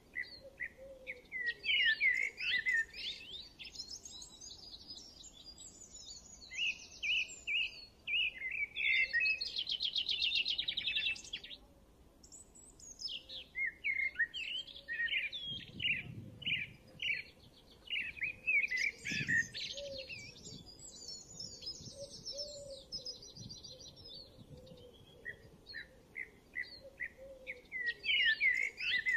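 Birds singing: rapid high chirps and trilled phrases that come in bursts of several seconds, with short pauses between.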